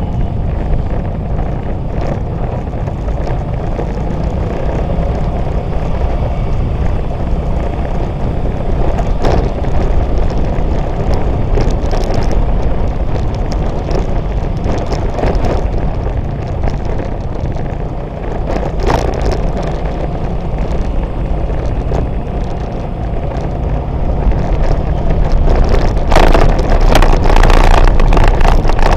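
Wind buffeting the microphone of a motorbike-mounted camera over a steady low rumble of the motorbike's engine and the surrounding street traffic, growing louder over the last few seconds.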